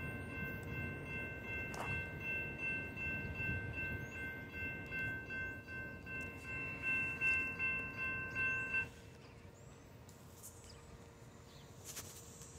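Railroad crossing warning bell ringing steadily over the low rumble of a freight train moving away, then cutting off suddenly about nine seconds in as the crossing signal stops.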